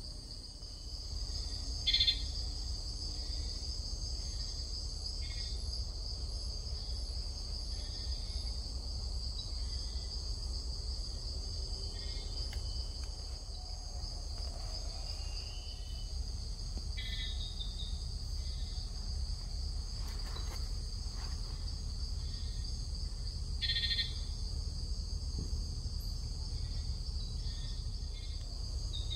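Night-time insect chorus in the forest: a steady, high-pitched trill, with short chirps from other insects breaking in every few seconds.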